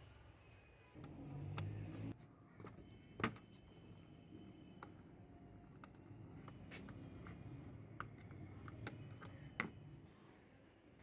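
Faint handling noise from a DVD player's open sheet-metal chassis: a screwdriver on a side screw, and a hand moving the power cord inside the case. Scattered sharp clicks and taps over low rustling, the loudest click about three seconds in.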